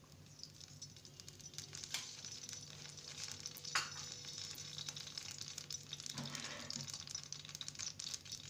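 Cooking oil sizzling and crackling in a metal kadhai on a gas burner as it heats, starting faint and growing louder over the first few seconds, with a few louder pops.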